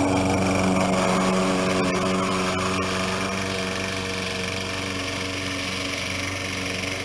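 Self-propelled gasoline lawn mower engine running at a steady speed, growing slightly fainter over the first few seconds.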